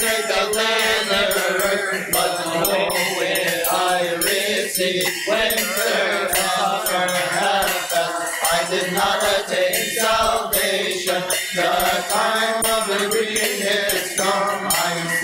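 Coptic hymn to the Virgin Mary chanted in Arabic, with metal hand cymbals striking a steady beat under the voices.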